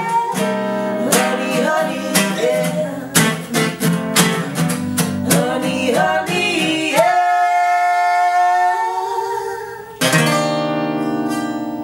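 Acoustic song ending: an acoustic guitar strums chords under long held sung notes, then a final strummed chord about ten seconds in rings out.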